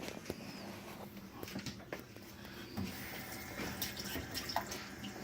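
Water running from a tap into a sink, with scattered small clicks and knocks.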